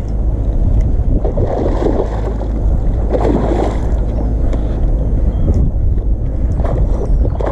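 Steady low wind rumble on the camera microphone while a hooked asp is played at the surface. Short splashy bursts come about one and a half seconds in, around three seconds in, and near the end.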